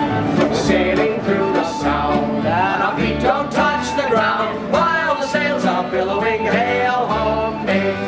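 Live acoustic folk band: men singing a song together over plucked upright bass and strummed acoustic guitar, with deep bass notes about once a second.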